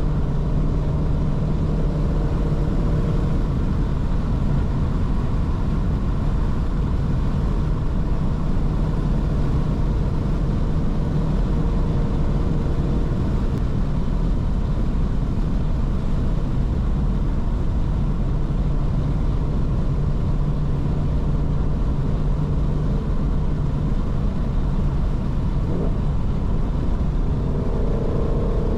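2019 Shelby GT350's 5.2-litre flat-plane-crank V8 running at a steady cruise under road and tyre noise. A higher engine tone comes in near the end.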